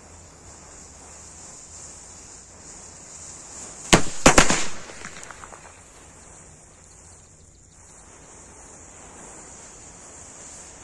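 Firecrackers going off. A sharp bang comes about four seconds in, two more follow close together right after, then a brief crackling dies away.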